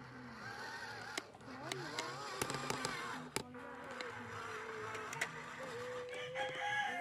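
Electric motors of a Huina 569 RC toy bulldozer whining, the pitch wavering up and down as the throttle changes, steadying into a held higher whine near the end, with scattered sharp clicks.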